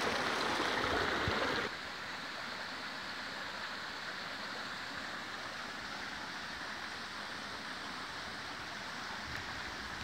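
Shallow stream of water running over flat rock slabs, a steady rushing wash; louder for the first couple of seconds, then softer and even.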